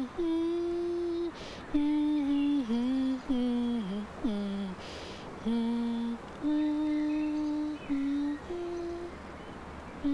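A woman humming a slow, wordless tune with closed lips, holding each note for about a second and sliding between pitches, with short breaths between phrases.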